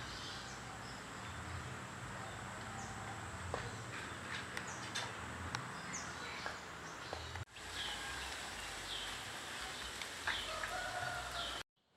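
Birds chirping over a steady outdoor background hiss: short, repeated downward-sweeping calls, with a few sharp clicks. The sound cuts out abruptly about seven and a half seconds in and again near the end.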